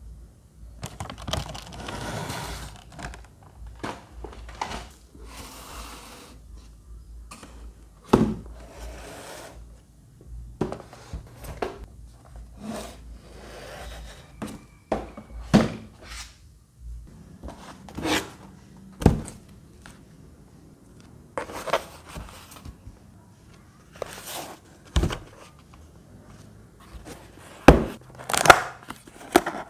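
Cardboard product boxes being handled on a table: rustling and scraping of the cardboard, broken by a series of sharp knocks and taps as boxes are set down, with the loudest ones near the end as a box's tuck flap is worked open.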